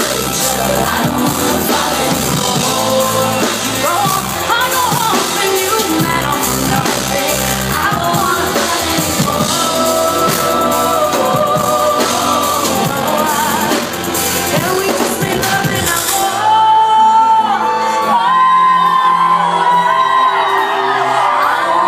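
Live pop band and female lead vocal, heard from within the crowd through a phone microphone. About sixteen seconds in the band drops out, leaving the voice holding long, wavering notes almost alone.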